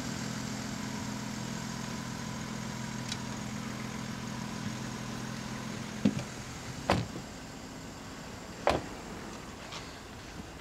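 A car engine idling with a steady hum that cuts out about six seconds in, followed by three sharp knocks over the next few seconds.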